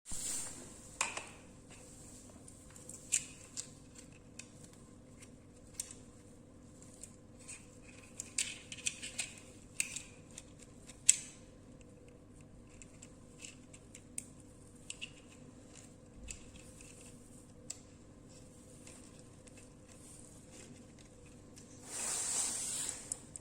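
Sparse small clicks and taps of something being handled, busiest in the middle, with a short rustling hiss near the end, over a faint steady hum.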